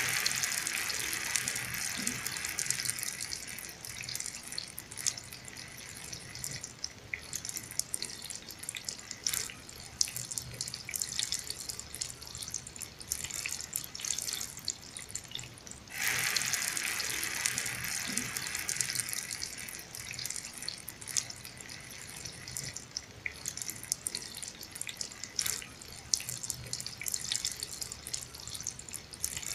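Heavy rain falling, a steady hiss thick with the sharp ticks of single drops. It jumps abruptly louder about halfway through.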